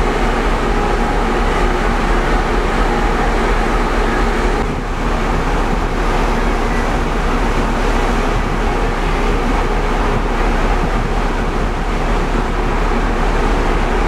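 Steady rumble and rush aboard the ferry Stena Superfast VIII under way at sea: the ship's engine drone mixed with the hiss of water streaming along the hull.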